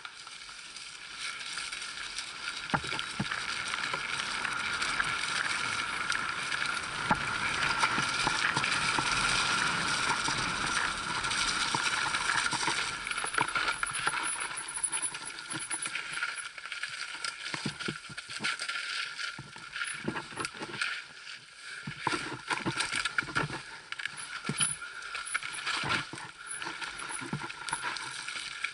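Mountain bike descending a rough dirt trail at speed, heard from a camera on the bike: a steady rattle of tyres, chain and frame mixed with wind, broken by frequent knocks as it hits bumps.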